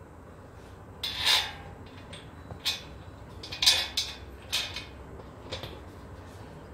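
Steel frame parts of an IKEA LERBERG shelf unit clinking and knocking against each other while being lined up for a bolt. About half a dozen sharp metallic clinks start about a second in, the loudest near the middle.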